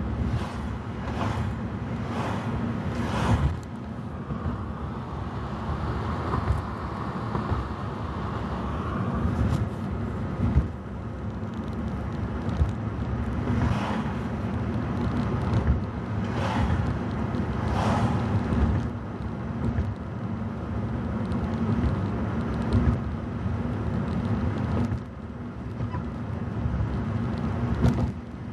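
Road noise inside a moving car at highway speed: a steady low rumble from the engine and tyres, broken by irregular thumps, several in the first few seconds and a few more around the middle.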